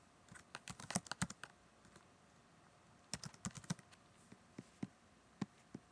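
Typing on a computer keyboard: two quick runs of keystrokes, the second starting about three seconds in, then a few separate clicks near the end.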